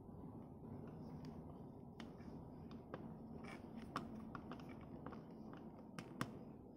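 Faint clicks and taps of a small plastic action figure being handled: its leg joints moved and its feet set down on a tabletop. A few sharper clicks stand out, two close together near the end, over a low room hum.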